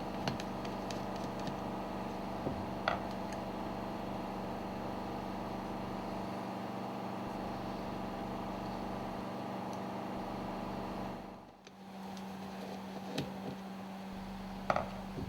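Steady low machinery hum, with a few light clicks and taps of tools and small metal parts being handled. The hum drops out briefly about eleven seconds in, then carries on.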